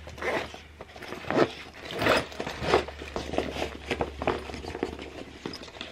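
Fabric backpack being unzipped and its main compartment opened by hand: a run of irregular rustling swishes as the bag's fabric is pulled and handled.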